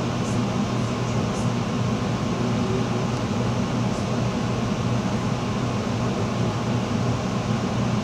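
Steady blizzard wind blowing, a constant low rushing noise without pauses.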